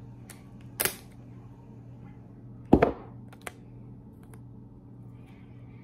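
Handling of a roll of clear packing tape: a brief rasp of tape about a second in, then a sharp thump near the middle and a small click just after, over a steady low hum.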